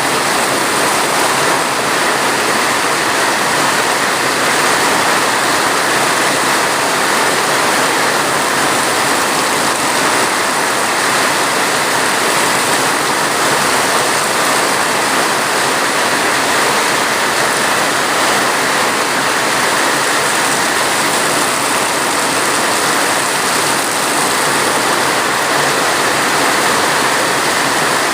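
Heavy rain falling in a steady, unchanging hiss.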